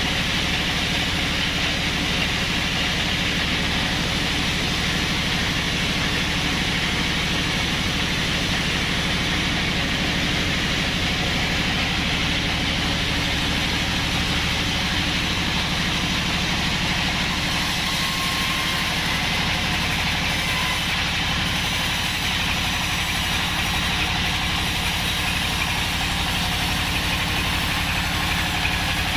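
Band sawmill running steadily: an even, unchanging low machine hum with a steady hiss above it.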